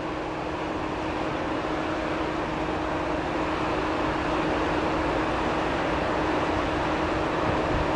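Steady rushing noise with a constant low hum from the Carnival Imagination cruise ship's machinery and ventilation on its open top deck, growing slowly a little louder.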